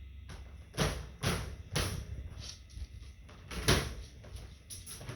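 Irregular knocking and banging: a quick run of three hits in the first two seconds, another about two and a half seconds in, the loudest just before four seconds, then several lighter taps.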